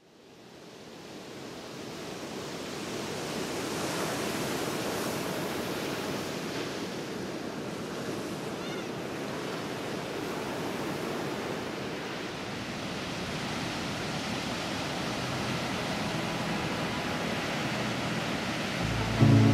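Sea surf washing on a sand beach: a steady rush of waves that fades in over the first few seconds. Near the end a brief, louder low-pitched sound comes in.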